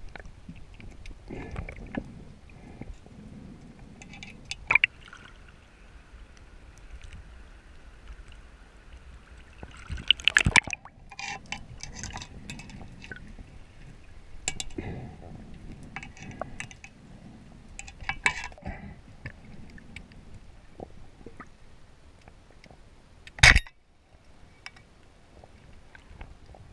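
Underwater sound through an action camera's housing during a freedive: a steady low water rush with scattered clicks and crackle. Two sharp knocks stand out, about ten seconds in and near the end, the second the loudest.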